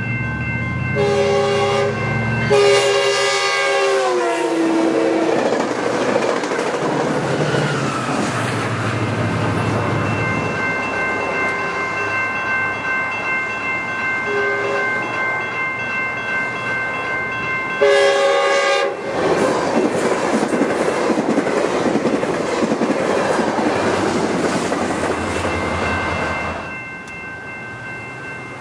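Passenger train horns blowing for a grade crossing: a few blasts at the start, then a long one that drops in pitch as the train passes. The rush and wheel clatter of passing trains follow, with steady ringing tones from the crossing warning bells. A second short horn blast comes about two-thirds of the way through.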